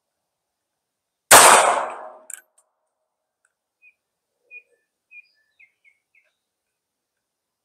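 A single shot from a Ruger LCP .380 ACP pocket pistol about a second in, fading out over most of a second, followed by a small click. Faint bird chirps follow a few seconds later.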